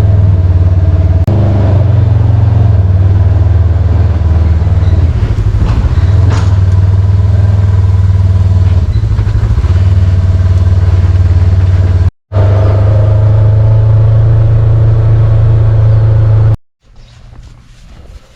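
An engine running steadily, loud and close, with a deep low hum. It cuts off abruptly about twelve seconds in, resumes, and cuts off again near the end.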